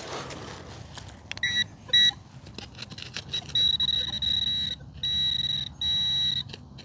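Metal detector sounding its electronic target tone over buried metal: two short high beeps about a second and a half in, then a run of longer beeps, each about a second, with brief gaps.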